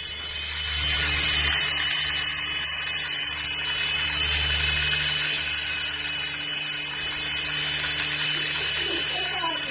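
Mini toy RC helicopter's small electric rotor motors whining steadily in flight, swelling and easing a little in loudness.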